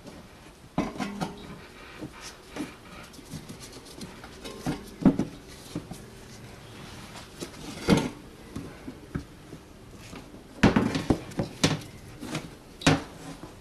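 Irregular clicks, taps and knocks of small plastic and rubber parts being handled and pushed into place in a plastic windscreen washer tank, with a run of louder knocks near the end.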